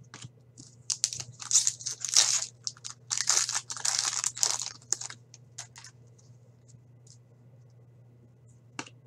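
A foil hockey card pack being torn open and crinkled by hand, with loud crackling tearing for about four seconds. A few light clicks follow as the cards are handled.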